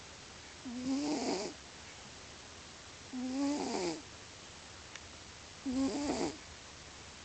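Sleeping domestic cat snoring loudly: three snores about two and a half seconds apart, each a short pitched rasp.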